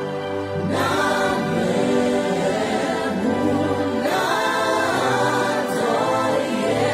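A choir singing a gospel worship song with musical accompaniment, with held sung phrases that change about every second.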